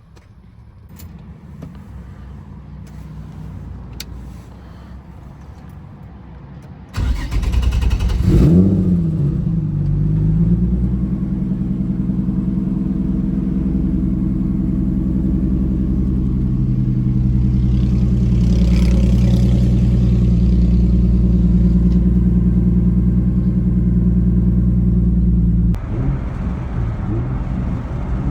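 Turbocharged Nissan 350Z's V6 engine firing up about seven seconds in after some faint clicks, flaring briefly in revs, then settling into a steady idle that dips slightly near the end. This is its first start on a fresh E85 tune.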